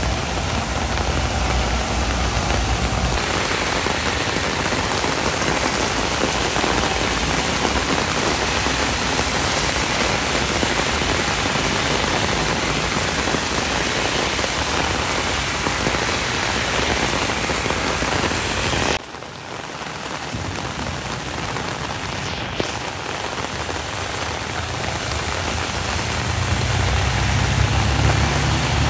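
Heavy rain pouring onto a wet road, a dense steady hiss. A bus engine rumbles close by in the first few seconds, and another bus's engine rumble builds near the end as it passes.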